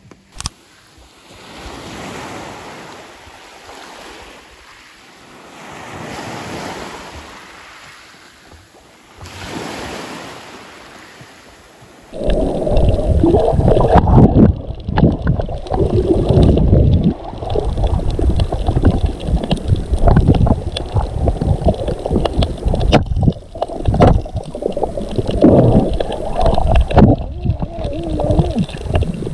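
Waves washing ashore, swelling and fading every few seconds. About twelve seconds in it changes to water heard by a camera underwater while snorkelling: loud, irregular sloshing and gurgling with a low rumble.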